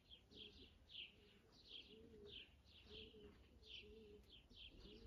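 Faint birdsong: a small bird chirping over and over, two or three short falling notes a second, with a fainter, lower call repeating beneath it.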